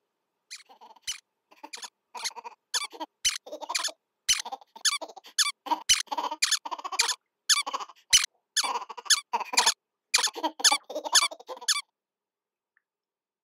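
Cartoon squeak sound effects in a quick, uneven string, with sharp clicks among them. They start about half a second in and stop a little before the end.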